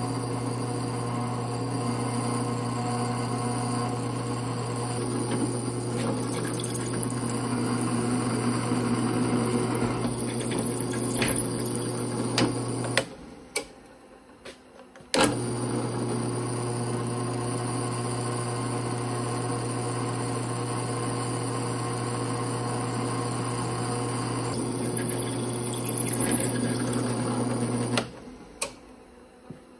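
Drill press motor running steadily while its bit bores through a solid steel rod held in a drill press vise. The hum cuts out for about two seconds around the middle, then starts again, and fades away near the end.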